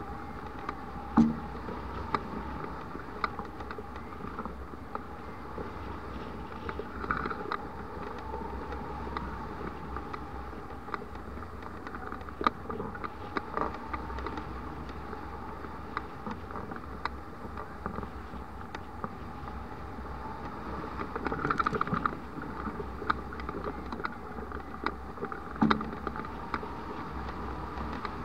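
Wind rushing past a hang glider's mounted camera in flight, a steady rush with scattered short clicks and taps from the glider's frame and rigging.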